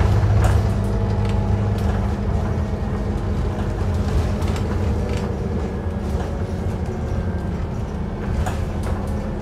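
Scania OmniCity bus heard from inside the passenger saloon while it drives along: a steady low engine and road drone with a few light rattles from the body and fittings. The drone eases slightly about half a second in.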